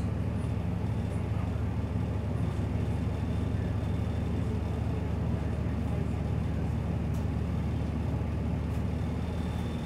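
Steady low drone of a city bus's engine and road noise, heard from inside the passenger cabin as the bus rides along.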